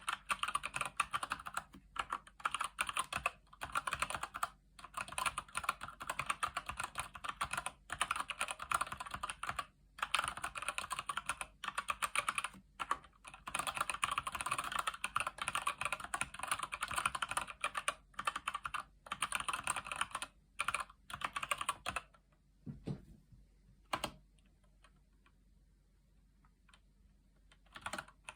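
Fast continuous typing on a Keychron C1 mechanical keyboard with Gateron Brown switches, dense runs of key clicks broken by brief pauses. From about 22 seconds in, the typing stops except for a few single keystrokes, and resumes right at the end.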